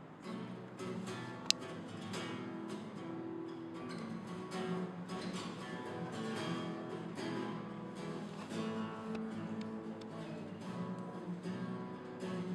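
Acoustic guitar being strummed and picked, with a single sharp click about one and a half seconds in.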